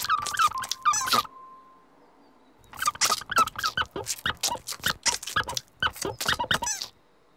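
Squeaky, high-pitched chirps in quick runs of about four or five a second, the sound for a sponge scrubbing a stone. They stop for about a second and a half, then start again.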